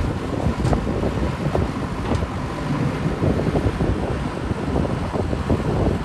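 Wind buffeting the microphone in uneven gusts, over the steady running of a diesel engine.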